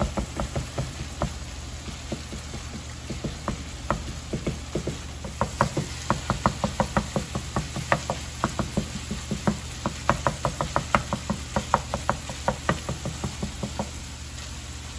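Wooden spatula knocking and scraping against a nonstick skillet as ground beef is stirred and broken up while it browns: quick irregular taps, several a second, busiest in the middle. A steady low hum runs underneath.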